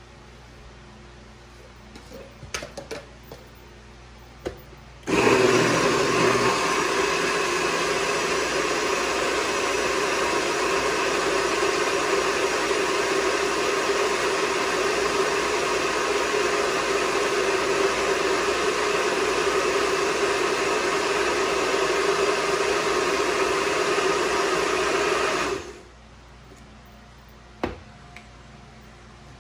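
A countertop blender runs at a steady speed for about twenty seconds, pureeing salsa, then cuts off suddenly. A few light clicks and knocks come before it starts.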